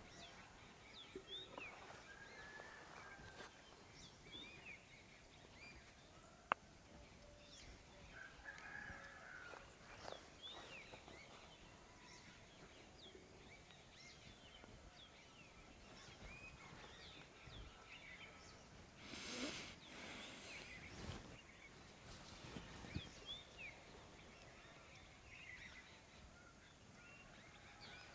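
Quiet outdoor ambience with birds chirping on and off throughout. There is one sharp click about six and a half seconds in, and a brief soft rustle a little before twenty seconds.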